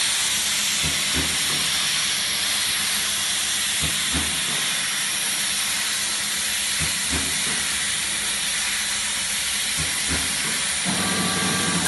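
Automatic empanada/turnover forming line running: a steady loud hiss under soft low thumps that come about every three seconds, often two close together, as the machine cycles. A low hum joins near the end.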